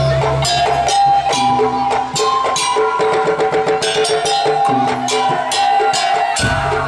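Madurese daul (tong-tong) percussion ensemble playing: a fast, steady beat of drum and wooden strikes under a held melodic line and a low bass.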